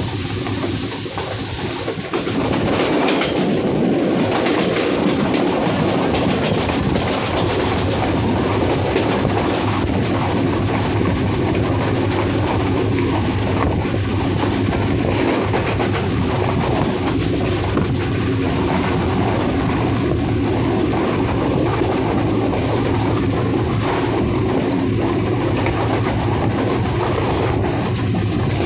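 Train running at speed, heard from on board beside an open window or doorway: a steady rumble and rattle of wheels on rails mixed with rushing air. A louder hiss sits on top for the first two seconds.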